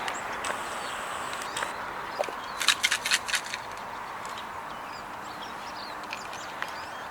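Outdoor background with faint bird chirps, and a quick run of sharp clicks about three seconds in.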